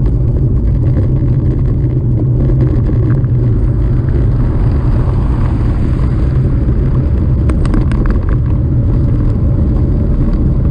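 Steady, loud wind rumble buffeting the microphone while riding a bicycle at speed, with faint clicks near the end.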